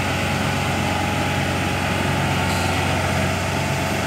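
Tracked rice combine harvester's diesel engine running steadily while the machine crawls up steel loading ramps onto a lorry.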